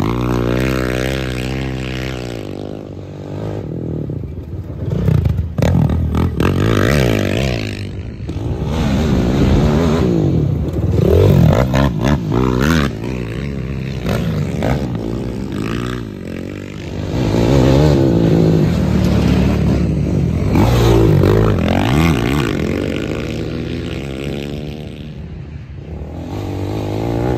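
Racing quads (sport ATVs) passing one after another on a dirt track, their engines revving up and dropping off as the riders work through the throttle. The engine pitch rises and falls as each quad comes by, several passes in a row.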